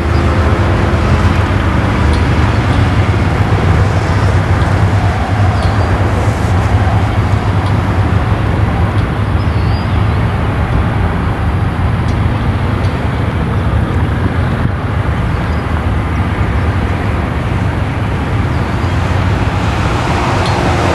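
Freight train passing close by: a loud, steady rumble of wheels on rails, with a diesel locomotive's engine tone audible in the first couple of seconds.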